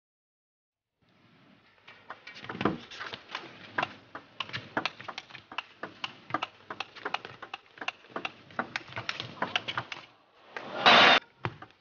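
A fast table tennis rally: the ball clicks sharply off the bats and the table several times a second. The rally ends with a short, loud burst of noise.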